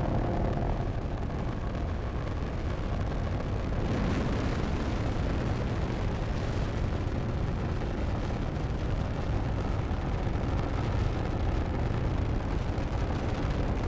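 Falcon 9 rocket's nine first-stage engines running during ascent: a steady, low-heavy roar of exhaust noise that does not let up.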